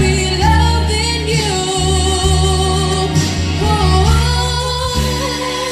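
Female voices singing a melody with long held notes over backing music with a heavy bass.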